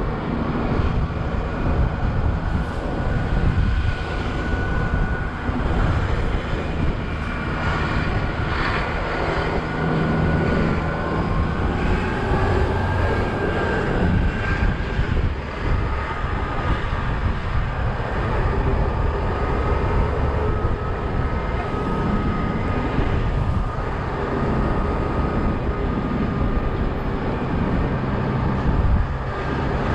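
Open-top double-decker bus running along a road, heard from its open upper deck: a steady engine and road drone with wind buffeting the microphone and a faint whine that drifts slightly in pitch.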